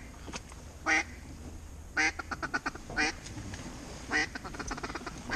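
Mallard hen quacks blown on a duck call: single loud quacks about a second apart, twice followed by a quick run of shorter, fading quacks, calling incoming ducks toward the decoys.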